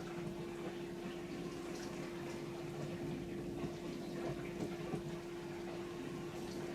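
Bosch compact countertop dishwasher running its wash cycle: the circulation pump holds a steady hum while water sprays and splashes inside the tub, with small scattered ticks.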